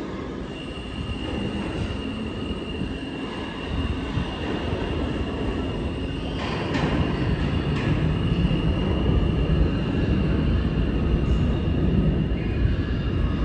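R160A subway train pulling away into the tunnel: a continuous low rumble of wheels on rail with a steady high-pitched wheel squeal over it. A couple of sharp clanks come over the rail joints about six and eight seconds in, and the rumble grows louder in the second half.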